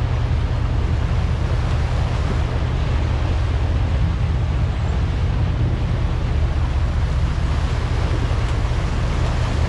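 Sportfishing boat under way at trolling speed: its engines give a steady low drone under the rush of the wake, with wind on the microphone.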